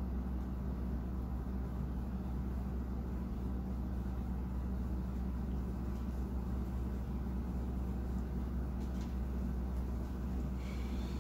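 Steady low hum and rumble of background noise, with no speech.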